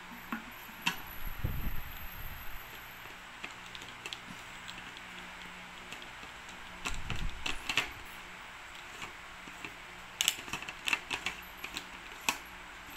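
Sharp plastic clicks, knocks and rattles from a plastic water bottle's flip-top lid and straw cap being handled, in three short flurries, over a steady faint hiss.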